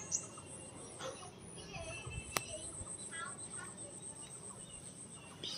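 Faint bird calls over a quiet background, with one sharp click a little over two seconds in.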